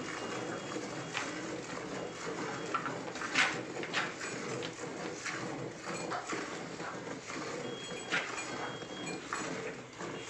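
Hand milking of an Indian desi cow: jets of milk squirting into a steel pail, short noisy squirts in an uneven rhythm of about one or two a second.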